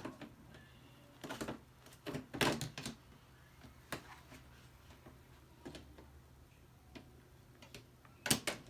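Scattered knocks and clicks of kids' desk parts being handled and slid into place during assembly, a handful spread over several seconds with a small cluster about two and a half seconds in.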